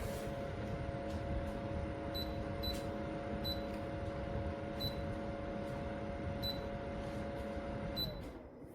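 A steady machine hum with two steady tones that winds down and stops about eight seconds in. Six short high beeps sound over it at uneven intervals.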